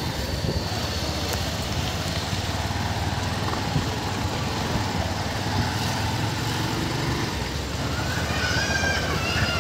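Steady low rumble of vehicle engines and traffic at a bus station. Near the end a high pitched sound rises.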